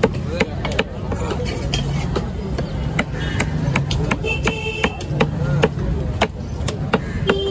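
Heavy cleaver chopping trevally flesh into pieces on a wooden log chopping block: sharp, irregular chops about two to three a second, over background voices.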